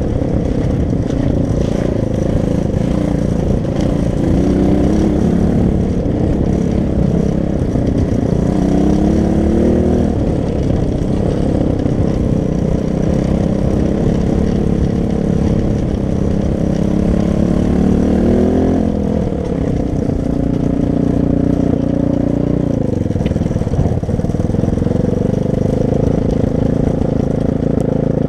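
Loncin 250 cc pit bike's single-cylinder four-stroke engine running under way, revving up and easing off: its pitch climbs several times, drops away about two-thirds of the way through, then holds steady.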